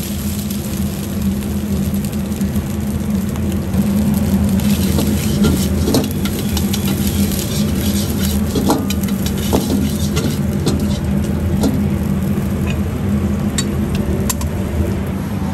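Stir-frying egg fried rice in a wok over a steady, loud, low rumble from the gas wok burner, with the rice sizzling and scraping as it is tossed. A metal ladle clanks sharply against the wok several times at irregular intervals.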